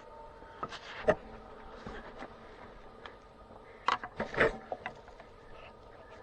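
Scattered clinks and knocks of hand tools working on metal parts during radiator disassembly on a Cat D6B bulldozer, with a sharp knock about a second in and a quick cluster of knocks around four seconds in.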